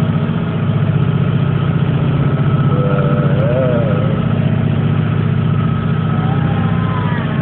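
Steady low drone of a car ferry's engines, heard from inside a car parked on the vehicle deck.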